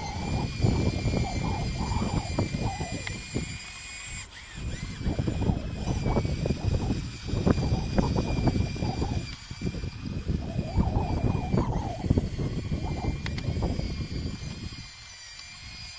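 Radio-controlled Bruder Cat D5 model bulldozer's small electric drive motors whining steadily at a high pitch as it pushes dirt, under an uneven low rumbling that swells and drops away several times.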